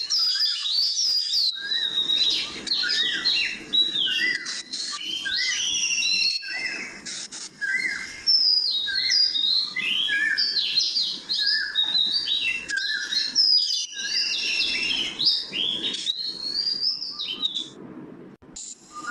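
Birds chirping and singing: many quick, overlapping rising and falling calls, with no let-up.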